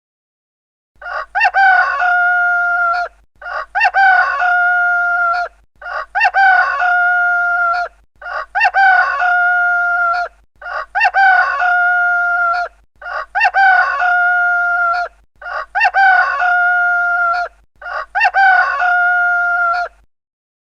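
Rooster crowing: eight nearly identical cock-a-doodle-doo calls in a row, each about two seconds long with a short gap between, the same crow repeated.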